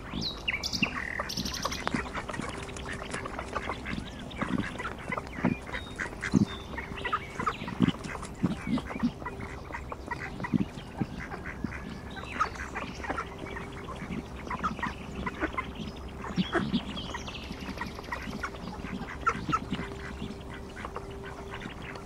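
Ducks calling: a busy, irregular run of short quacks and clucks that goes on throughout, with a faint steady hum underneath. A small bird chirps briefly near the start.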